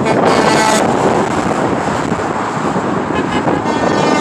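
Heavy highway traffic passing close by, with semi trucks and cars making a steady roar and wind buffeting the microphone. A brief pitched tone sounds about half a second in, and a fainter one near the end.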